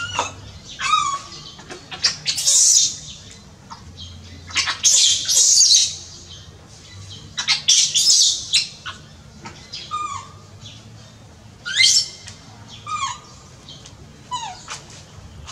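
Baby macaque crying in a string of shrill screams, one every one to three seconds, several sliding down in pitch: distress calls.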